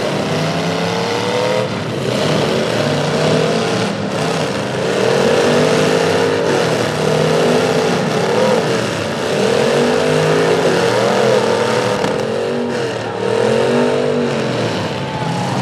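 Several demolition-derby pickup truck engines revving hard over and over, their pitch rising and falling in repeated swells as the trucks push and spin against each other, with a few sharp knocks from hits.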